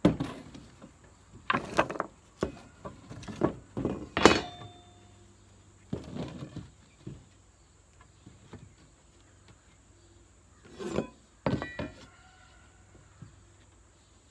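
Wooden boards and small cut squares of wood being handled and set down on a work surface: a string of irregular knocks and clatters, the loudest about four seconds in and a pair near the end, a couple of them followed by a short ring.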